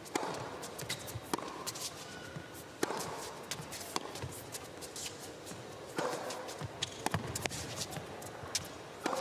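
Tennis rally on a hard court: sharp racket-on-ball strikes back and forth every one to two seconds, with the players' footsteps on the court between them.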